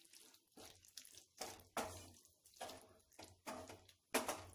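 A wooden spatula stirring a thick mash of potatoes and white peas in a nonstick pan: faint, uneven wet scraping and squelching strokes, about two a second.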